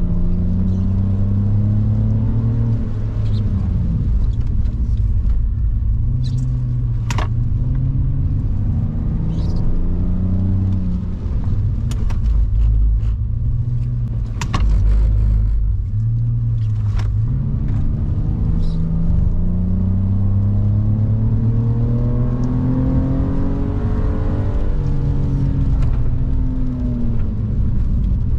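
BMW E46 330i's 3.0-litre straight-six heard from inside the cabin, revs repeatedly falling on braking for corners and climbing again under acceleration between roughly 2,000 and 4,500 rpm. A low tyre and road rumble runs underneath, with a few sharp clicks.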